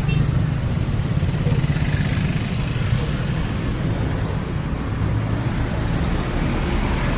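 Tour bus engine and exhaust running with a steady low rumble, mixed with road and traffic noise.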